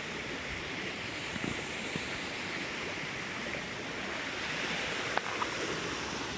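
Steady rush of flowing river water, with a couple of faint clicks a little after five seconds in.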